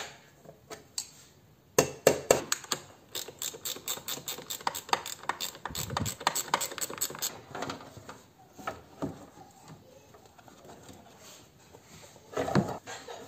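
Ratchet clicking in quick, even runs for several seconds as parts are fastened on the engine, followed by a few scattered knocks and a louder plastic knock near the end.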